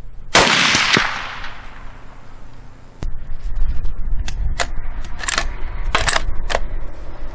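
A single .308 rifle shot from a Thompson/Center Compass bolt-action rifle: one sharp crack with about a second of ringing echo. A few seconds later the bolt is worked, giving a quick series of about five short metallic clacks.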